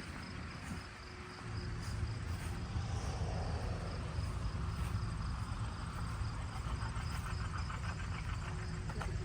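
A low engine rumble starts suddenly about a second and a half in and runs on steadily, with crickets chirping faintly in the background.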